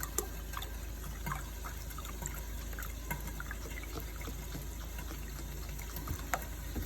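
Chicken broth being poured out to measure a cup: a steady liquid trickle with a few light clicks.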